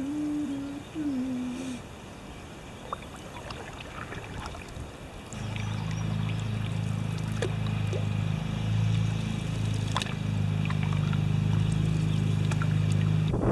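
Water sloshing and dripping around a paddled canoe, with a few sharp clicks. About five seconds in, a steady low droning hum begins and grows slightly louder; it holds a level pitch throughout.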